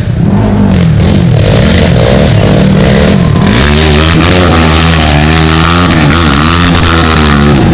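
Race ATV engines revving hard, their pitch climbing and dropping with the throttle; from about three and a half seconds in several engines sound at once.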